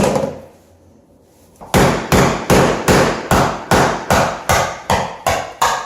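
Hammer blows driving a floor scraper under a firmly stuck peel-and-stick vinyl floor tile. After a single blow and a pause of about a second, the blows come steadily, about three a second.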